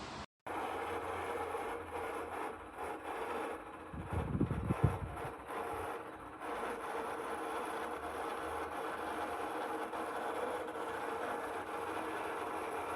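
Dreo tower fan running steadily: an even rush of air with a faint steady hum. A few low knocks come about four to five seconds in.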